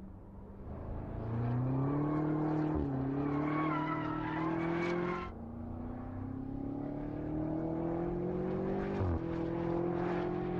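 2018 BMW M5 F90's twin-turbo V8 accelerating hard, its pitch climbing and dropping back at each of about three quick upshifts. A high wavering squeal, likely the tyres, rides over the first seconds of the pull.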